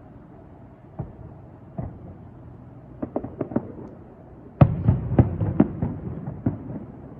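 Fireworks exploding: single bangs, then a quick run of four, then the loudest burst followed by a rapid string of crackling bangs, over a low steady rumble.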